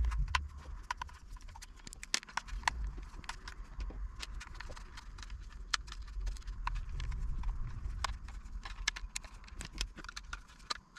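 Small screwdriver backing out the four screws of a basic Omnitrix toy's casing: a series of light, irregular clicks and ticks, several a second, over low handling rumble.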